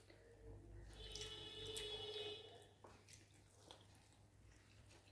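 Near silence with faint wet mouth sounds of someone chewing food, and a faint held tone for about a second and a half, starting about a second in.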